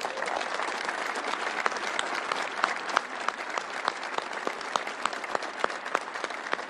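A large audience applauding steadily, many hands clapping together.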